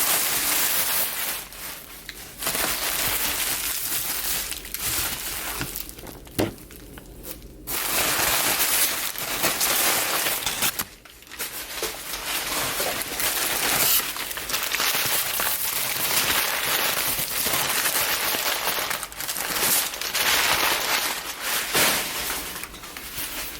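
Packing paper crinkling and rustling as hands dig through a shipping box, in several long stretches broken by short pauses.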